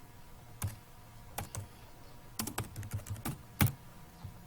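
Typing on a computer keyboard: an irregular run of separate keystrokes, the loudest about three and a half seconds in.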